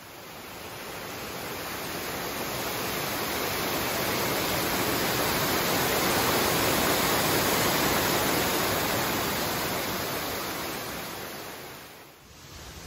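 Water rushing over a small dam and down a rocky cascade: a steady rush that grows louder toward the middle and fades near the end.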